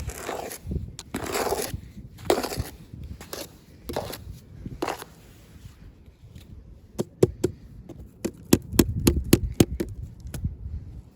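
Packaging being unwrapped by hand: crinkling and scraping rustles for the first few seconds, then a quick series of sharp clicks and taps.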